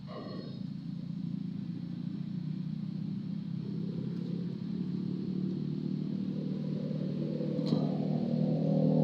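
A motor engine drawing closer, its steady low hum growing louder throughout, with a single sharp click about three-quarters of the way through.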